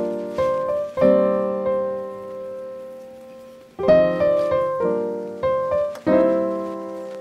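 Background piano music: slow chords struck every second or so, each ringing and fading out.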